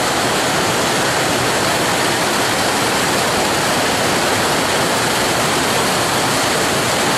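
Small, low waterfall splashing onto rocks close by: a steady, loud rush of falling water.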